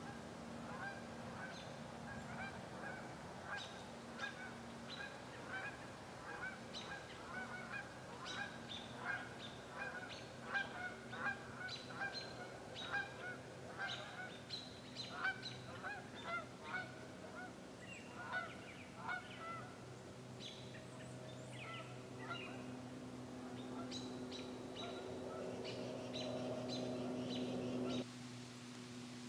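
A flock of geese honking: many short calls, thick over the first two-thirds and thinning toward the end, over a steady low hum.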